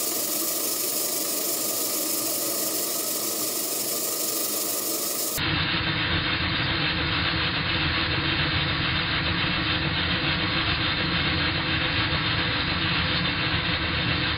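Model twin-cylinder vertical steam engine running steadily on live steam: a continuous hiss of steam over the mechanical running noise of the engine. About five seconds in the sound changes abruptly, turning duller with more low rumble.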